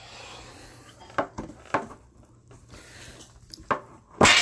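A metal card-box tin being handled: a few light clicks and taps, then one loud metallic clang near the end as its lid is pulled off.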